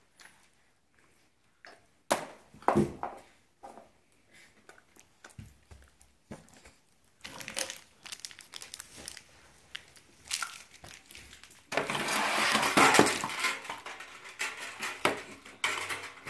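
Plastic sweet wrappers crinkling as a child unwraps candies: scattered short crackles at first, then about three seconds of continuous loud crinkling around twelve seconds in.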